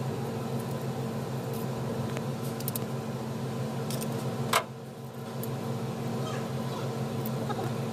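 A steady machine hum, with one sharp metal click a little past halfway as a wrench and screwdriver work a rocker-arm adjusting screw during a valve clearance adjustment.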